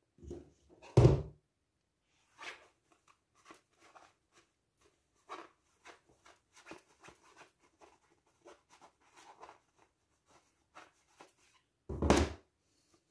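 Hands handling a plush minky fabric pouch, pushing its lining inside: soft, scattered rustling and brushing of the fabric, with two dull thumps, one about a second in and one near the end, the loudest sounds.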